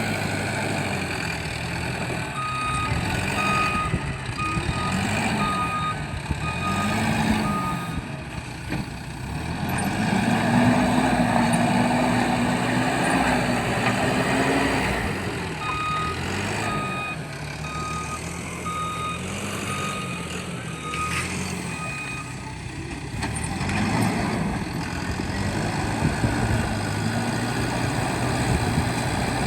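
Diesel engine of a Case 770 backhoe loader working, its revs rising and falling again and again and held high for several seconds in the middle as the hydraulics take load. A reversing alarm beeps repeatedly in two spells, one early and one past the middle.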